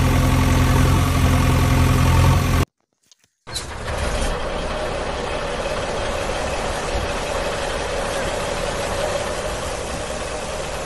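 Engine running steadily: a loud, even pitched hum that cuts off about two and a half seconds in, then after a moment of silence a steady, noisier engine drone with one held tone.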